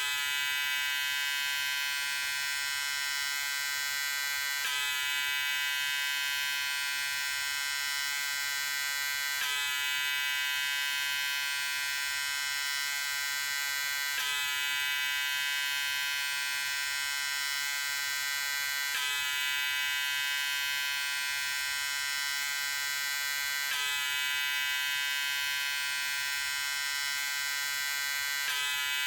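Electric shaver running with a steady, high buzz. Its tone shifts slightly about every five seconds.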